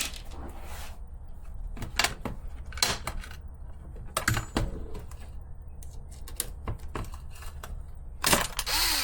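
Small hard parts and screws clicking and tapping as they are handled and set down on a work surface, a scattering of separate sharp clicks, with a longer rattling scrape about eight seconds in.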